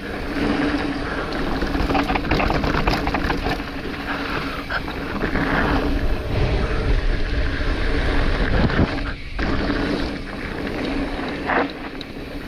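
Mountain bike on a fast trail descent: rushing wind over the microphone and a steady rumble from the tyres, with rattling and clattering from the bike over rough ground, busiest about two to three seconds in.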